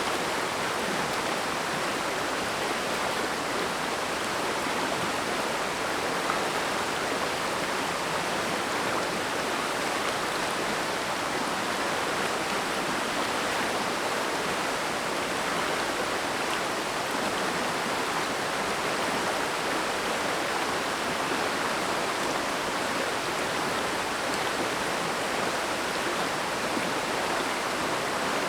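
Mountain stream rushing steadily, an even, unchanging wash of flowing water.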